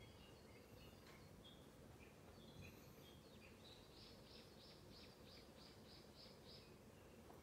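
Faint birdsong over a low steady background hiss: scattered high chirps, and about halfway through a quick run of about ten repeated notes, roughly four a second.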